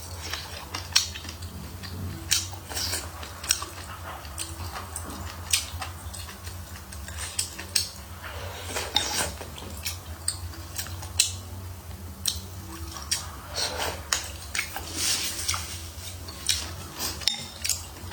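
Close-miked eating of hotpot food: chewing and biting with many irregular sharp clicks of utensils against a bowl, over a steady low hum.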